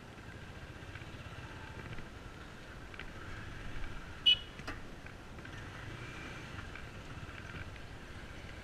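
Bajaj Pulsar single-cylinder motorcycle engine running steadily at low speed over a muddy track. A short, sharp high-pitched click or tick stands out about halfway through.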